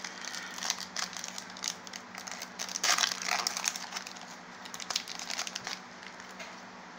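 Crinkling and crackling of a foil Pokémon booster pack wrapper and its clear plastic inner wrapper as the pack is opened and the cards are pulled out, loudest about three seconds in and dying away about a second before the end.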